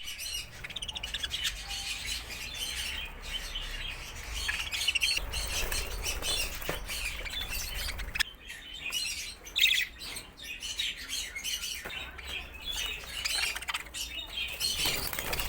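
A group of show budgerigars chattering, with many short, chirping calls overlapping throughout and one louder call about ten seconds in.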